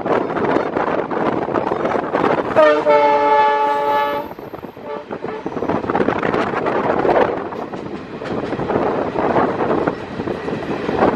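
A diesel locomotive's horn sounds once, about two and a half seconds in, for about a second and a half, over the continuous rumble and wheel clatter of a moving train.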